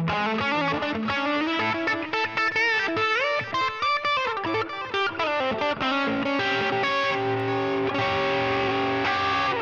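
Fender American Professional Stratocaster HH Shawbucker electric guitar played through a Line 6 Helix Floor modeler: a lead solo of quick note runs with string bends, settling into longer held notes in the second half.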